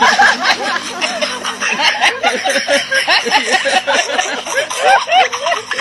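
Several people chuckling and snickering at once, a dense run of short overlapping laughs.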